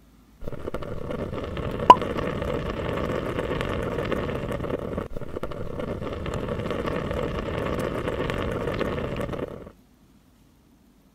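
Curry simmering in a pot: a steady bubbling noise that starts and stops abruptly, with one sharp click about two seconds in.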